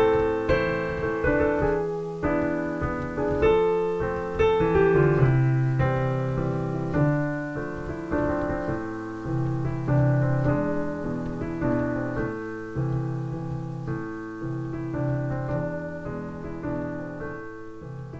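Piano music, a run of struck notes in a steady flow, gradually getting quieter.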